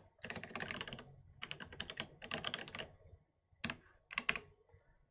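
Typing on a computer keyboard: runs of quick keystrokes for about three seconds, then, after a short pause, two brief bursts of keys.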